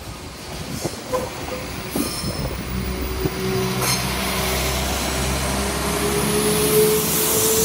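Northern Class 195 diesel multiple unit passing over a level crossing. Its engine hum grows louder, and a whine slowly rises in pitch through the second half as it gathers speed. The wheels click sharply over the rails a few times in the first four seconds.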